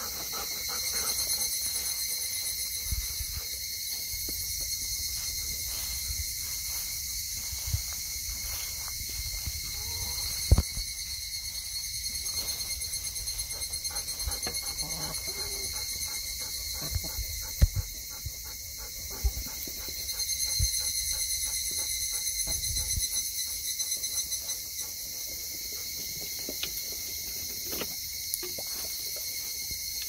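Steady chorus of insects trilling in a high register throughout, with a low rumble and a few sharp knocks.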